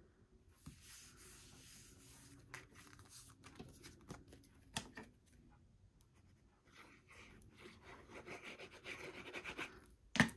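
Faint handling of cardstock: sheets sliding and rubbing against each other on a craft mat, with a few light clicks. Then comes a longer scratchy stretch as the tip of a liquid glue bottle is dragged across black cardstock while the glue is squeezed out, ending in a couple of light taps.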